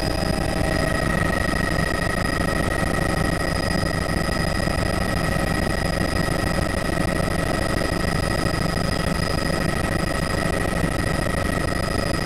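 Helicopter heard from inside the cabin in flight: a steady drone from engine and rotors with a constant high-pitched whine over it.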